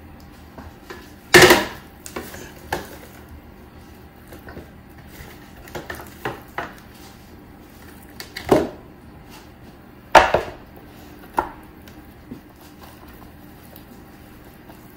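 A metal sheet pan clattering against a stone countertop and a wooden cutting board as it is shifted and a large raw turkey is set onto it. Three sharp knocks, the loudest about a second and a half in and the others past the middle, with softer bumps in between.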